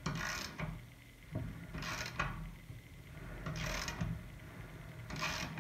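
Hand-turned blade adjuster on a reel mower being tightened: four short scraping strokes, roughly a second and a half to two seconds apart, as the bedknife is drawn in toward the reel until it starts touching.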